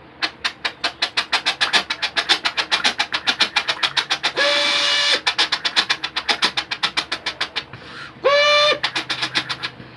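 A man imitating a steam train with his voice: a long run of rapid, rhythmic chugging puffs, broken twice by a short held whistle, once about halfway through and once near the end.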